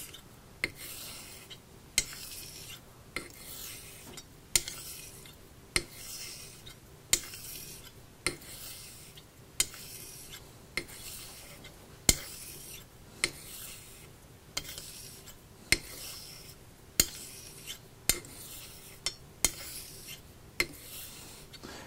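Straight razor honed on a water-wetted natural stone under the weight of the blade only: a soft hiss of the edge gliding over the stone, with a sharp click about every second and a quarter as the blade is flipped over on its spine for the next stroke.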